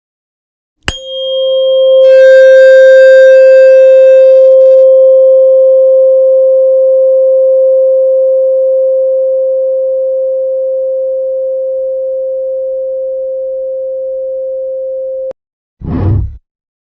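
A pure tone near 528 Hz begins with a click about a second in and holds steady, slowly fading for about fourteen seconds before cutting off suddenly. A short burst of noise follows near the end.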